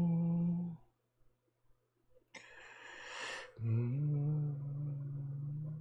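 A man humming long, steady held notes, with a loud breath drawn in between them about halfway through; the second note steps up in pitch shortly after it starts.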